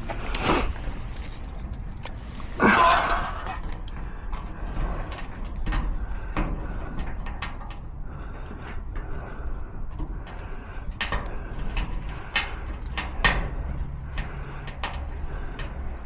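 Lock-picking tools working in a garage door lock cylinder: irregular small metallic clicks and scrapes, with a louder scrape about three seconds in.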